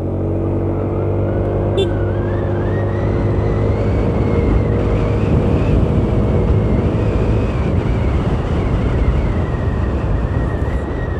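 Yamaha Aerox 155 maxi-scooter's single-cylinder 155 cc engine running while riding, its pitch rising over the first couple of seconds as the scooter picks up speed, then holding steady under a growing rush of wind and road noise.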